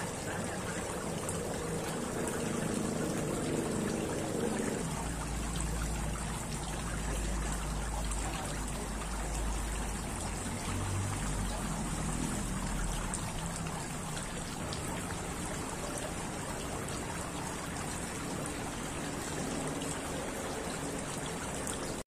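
Water trickling and spattering steadily down the tiers of a stone garden fountain into its basin.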